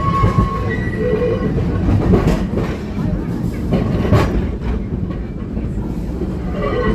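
Heritage Brisbane City Council electric tram running along its track, heard from on board by the open doorway: a steady low rumble of wheels and running gear, with two sharp clacks of the wheels on the track about two seconds apart.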